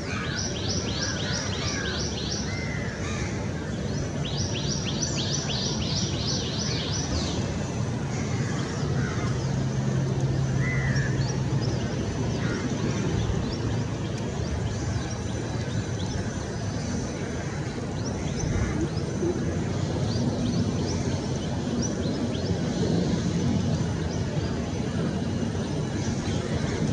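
Birds calling against a steady background rumble: two rapid runs of high, quick notes in the first several seconds, then scattered short calls.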